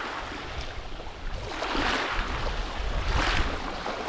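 Small waves washing on a shallow shore, the wash swelling and fading every second or two, with wind rumbling on the microphone.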